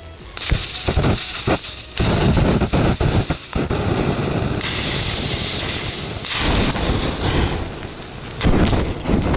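Butane lighters in a fire venting their gas: loud hissing jets broken by sharp pops, setting in about half a second in and running strongly for several seconds, easing, then a second loud burst of hissing near the end.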